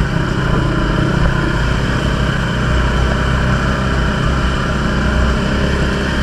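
ATV engine running at a steady, even throttle as the quad is ridden along a dirt trail.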